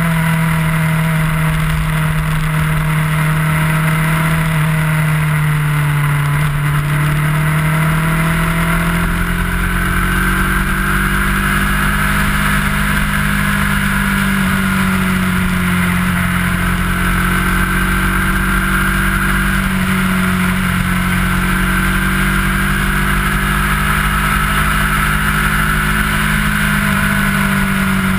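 Kawasaki ER-6f's 649 cc parallel-twin engine running at a steady cruise, its note rising a little as the bike speeds up about a third of the way in and then holding, with wind rumble on the bike-mounted microphone.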